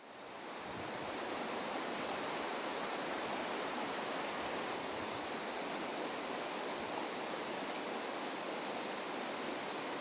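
Water running along a shallow, stony irrigation ditch (acequia): a steady rush that fades in over about the first second.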